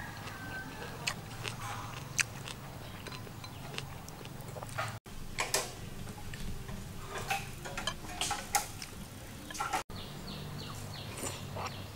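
Close-up eating sounds: chewing and lip smacks, with scattered light clicks of wooden chopsticks against the bowls.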